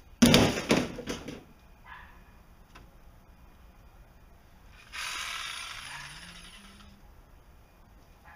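A removed Jeep Cherokee XJ door thrown onto a pile of parts, landing with a loud metal crash and a couple of rattling strikes that die away within a second. About five seconds in comes a hissing rush of noise that fades over two seconds.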